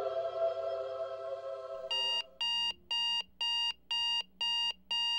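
Sustained music fades out, and about two seconds in an electronic alarm clock starts beeping: a high, even beep repeating a little under twice a second.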